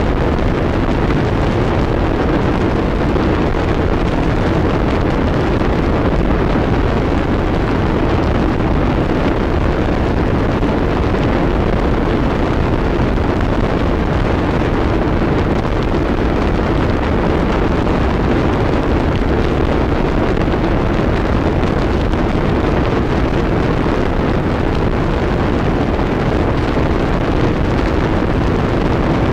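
Harsh noise wall: a dense, unchanging wall of noise with no rhythm or pitch, heavy in the low and middle range with little top end.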